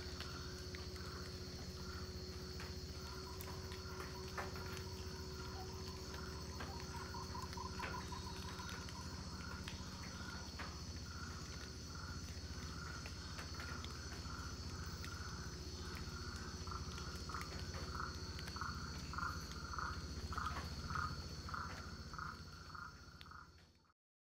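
Amazon rainforest ambience: a steady, high-pitched insect chorus over a low hum, with a repeated pulsing call that grows louder and more frequent in the second half. The sound fades out shortly before the end.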